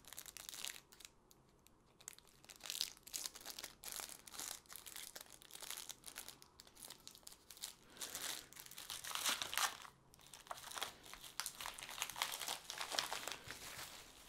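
Bubble wrap and thin plastic packaging crinkling as it is folded and wrapped around a strip of small plastic paint pots. It crackles in irregular bursts, with a short lull about a second in and the busiest handling in the second half.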